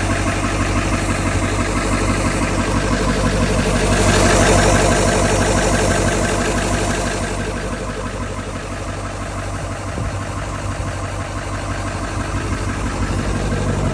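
2000 Ford 7.3 L Powerstroke turbodiesel V8 idling with a steady, rhythmic knock, which the owner cannot place as either an injector knock or an engine knock. It grows louder for a few seconds about four seconds in, then settles back.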